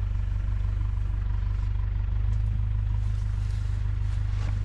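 A vehicle engine idling steadily with a low, even hum, most likely the safari game viewer that the guests are sitting in.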